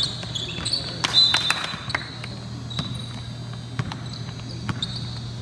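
A basketball bouncing on a hardwood gym floor as a player dribbles it up the court, with scattered short high sneaker squeaks. A steady low hum runs underneath.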